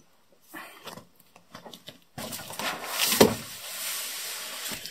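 Cardboard boxes being handled on a tabletop: scattered rustles as one box is lifted away, then a large cardboard box is set down with a thump about three seconds in and shuffled and scraped into place.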